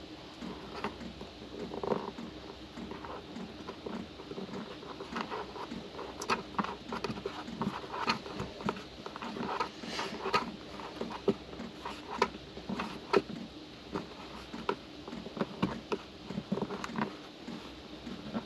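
A small metal screw hook being twisted by hand into a wooden plank wall: irregular small clicks and scratching as it turns.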